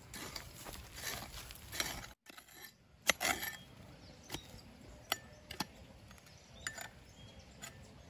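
A small hand hoe digging into dry, stony soil: a few scraping strokes, then about six sharp clinks as the metal blade strikes stones.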